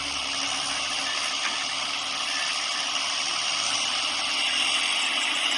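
Heavy machine's engine running steadily, heard as an even mechanical noise.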